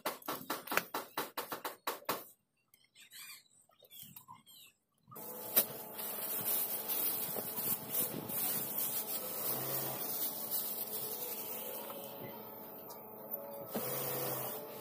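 A fast run of clicks, a short quiet gap, then a plastic bag and folded white upholstery fabric rustling and rubbing as they are unpacked and spread across a cutting table.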